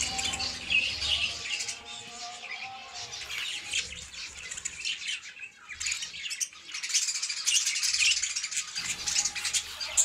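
A colony of small cage birds, finches and budgies, chirping and chattering continuously with many overlapping short high calls; the calling thins briefly just past the middle and then picks up again.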